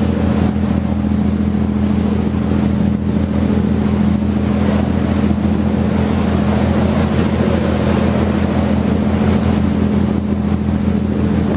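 Engine of a motorboat carrying the camera, running steadily with a constant low hum, over a rushing noise of water and air.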